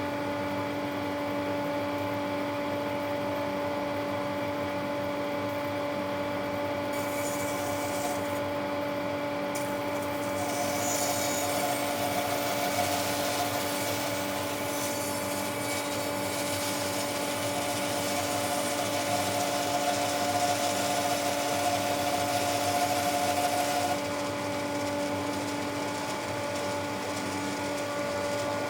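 Electric woodworking power tool running steadily with a constant hum. From about ten seconds in, a harsher hiss of the tool cutting wood joins it and stops abruptly near the end.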